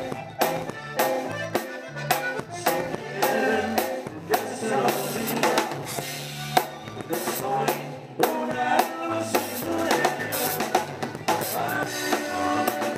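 A live band playing, driven by a drum kit: rapid snare hits and cymbal crashes over a kick drum, a moving bass line and sustained melody instruments.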